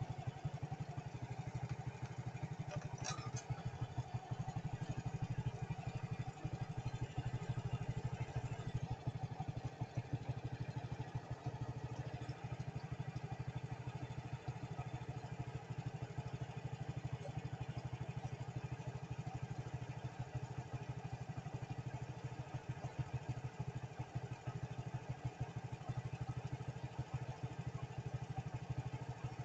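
A vehicle engine running steadily, a low, even drone that does not change over the half-minute.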